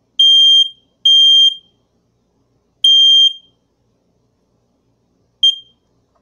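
FireX 120-1072B hardwired smoke alarm sounding its shrill, high-pitched horn under test: two half-second beeps back to back, a third about three seconds in, then a short chirp near the end. This is an irregular sounding, not the usual three-beep 'doot, doot, doot' pattern.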